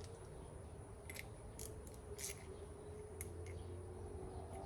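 A few faint, separate small clicks and scrapes of a screwdriver working on the small screws of a wheel center cap, over a faint steady hum.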